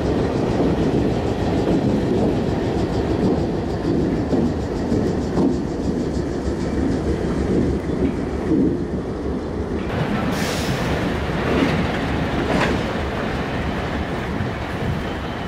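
Diesel locomotives rolling past: a steady engine rumble with wheels clattering over the rails.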